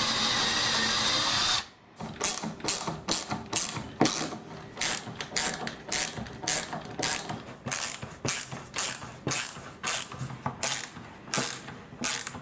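Power drill running steadily, stopping abruptly about a second and a half in. It is followed by a long run of sharp ratchet-like mechanical clicks, about three a second, while screws are driven into the panel.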